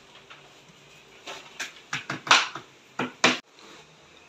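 Hammer tapping a nail into the wall: a run of light, sharp knocks, about eight in two seconds, the last two loudest.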